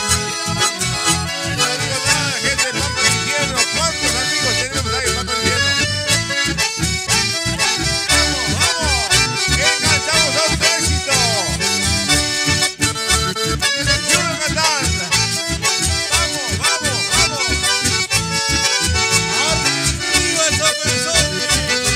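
Live band music led by button accordions and a bandoneon, over strummed acoustic guitar and electric bass keeping a steady beat.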